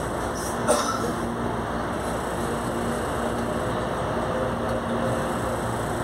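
Commuter electric train running, heard from inside the carriage: a steady rumble with a faint hum. About a second in there is one short, high squeak.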